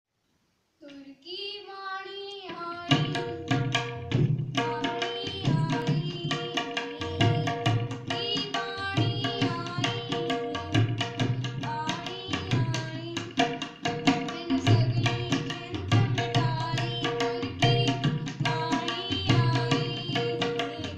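Tabla playing: the right-hand dayan's ringing strokes and the left-hand bayan's deep bass strokes in a fast, steady rhythm. A short melodic phrase opens, and the drumming comes in about three seconds in. A sustained melody continues above the strokes.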